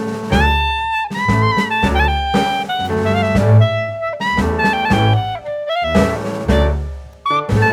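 Background music: an upbeat jazz-style tune with a saxophone-like lead over drums and bass.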